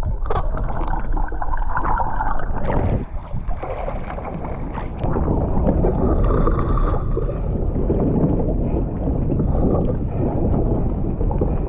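Water splashing and sloshing against a plastic sit-on-top kayak as a diver comes out of the water beside it, with a few knocks against the hull.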